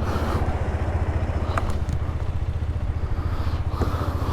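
A motorcycle engine idling with a steady low throb.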